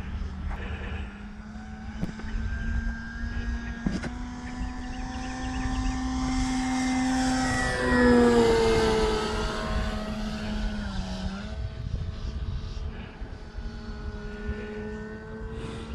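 Electric motor and propeller of a Flex RV-8 60E RC plane whining steadily in flight. It grows louder as the plane makes a low pass about eight seconds in, dropping in pitch as it goes by. The pitch dips briefly and recovers a few seconds later.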